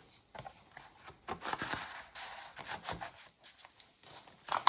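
Paper and card of a handmade junk journal being handled: rustling and rubbing as flaps, tags and tucked cards are moved, with small taps and a sharper snap near the end.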